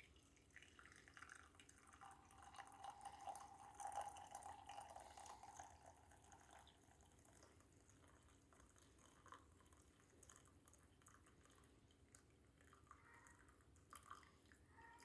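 Coffee poured faintly from a French press into a mug: a thin liquid pour that starts about two seconds in and lasts some five seconds.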